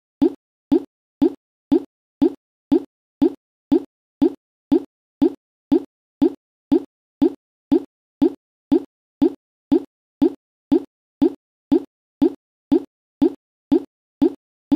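A short, low plop repeated at a perfectly even pace of about two a second, each one identical to the last: a looped sound effect.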